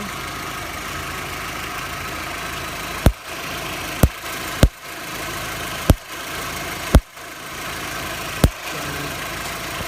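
Volkswagen Golf Mk4 engine idling, with six sharp, irregularly spaced snaps of an electrical spark arcing at the starter motor, each followed by a brief dip in the engine sound. The arcing came from a faulty starter motor and gave a misfire feeling.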